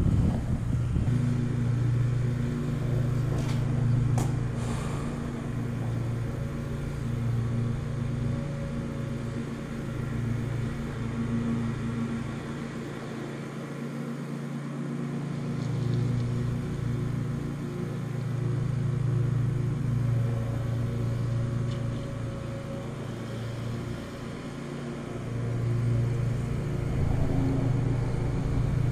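Steady low rumble and hum of road traffic on the bridge overhead, swelling and easing every few seconds.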